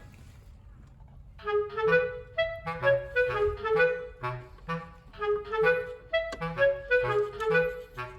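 Background music: a light tune of short, clipped notes over a soft beat, starting about a second and a half in after a brief lull.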